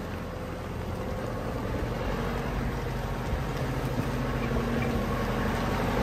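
Manitou MT 933 telehandler's diesel engine running steadily, slowly growing louder.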